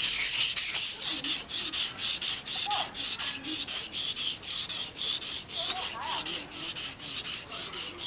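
A coat of lacquer on a round Burmese lacquerware piece being sanded by hand. The hand rubs it in quick, even back-and-forth strokes, about three to four a second, each a hissing scrape.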